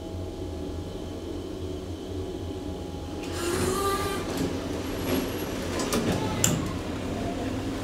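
1974 KONE traction elevator car with a steady low hum for about three seconds, then its automatic sliding doors opening: a rise of sliding noise followed by a few sharp clicks and clunks of the door mechanism as they come fully open.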